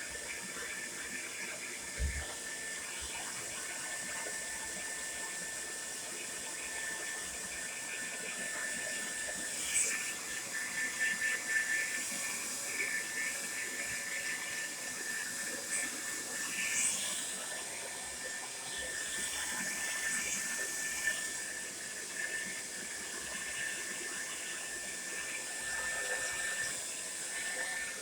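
Tresemmé Salon Smooth Professional hair dryer running steadily: a rushing hiss of air with a thin steady whine, and a few brief louder swells partway through.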